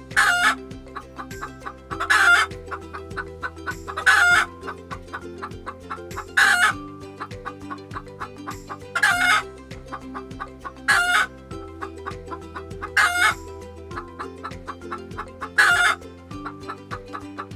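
Chicken sound effect: eight short clucking calls, about one every two seconds, over light background music with a steady beat.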